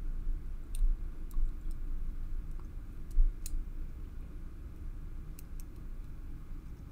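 Light, scattered metallic clicks and scraping of a thin steel tool working inside a brass dimple lock cylinder as its pins are fished out, the sharpest click about three seconds in. A low handling rumble from the hands on the lock runs underneath.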